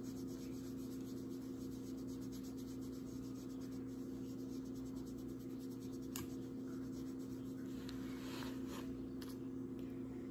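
Alcohol pad wiping across the skin of the stomach in faint, scratchy rubbing strokes, with a few small clicks, over a steady low hum.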